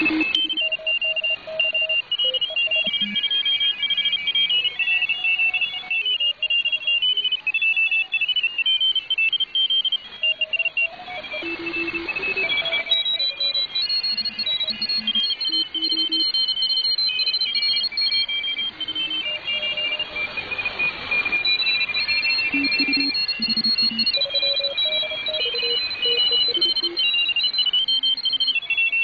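Shortwave receiver audio from the 160-metre amateur band: several overlapping radio signals beeping in short tones that hop between pitches, over band hiss that swells twice.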